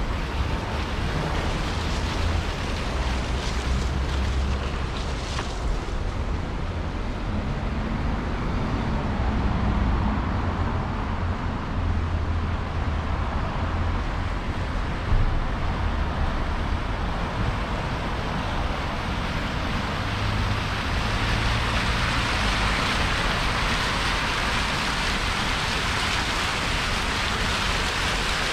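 Steady city traffic noise: a low rumble of engines with tyre hiss that grows louder about two-thirds of the way through. A single short knock sounds about halfway.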